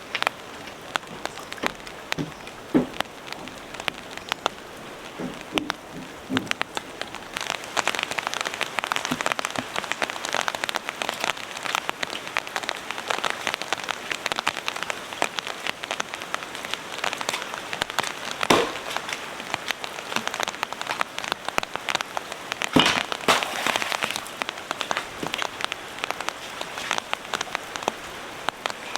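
Heavy rain pattering: a dense spatter of drops that grows heavier about a quarter of the way in, with a few louder knocks.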